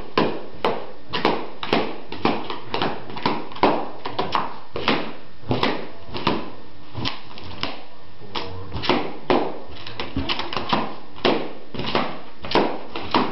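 Latex party balloons bursting one after another as a small dog bites into them, each a sharp bang, about two a second and quicker in a flurry toward the end.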